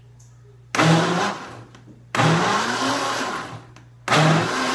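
Countertop blender pulsed three times while mixing a thick cornmeal and tapioca-starch cake batter. Each pulse is a short burst of the motor, its pitch rising as it spins up and then dying away.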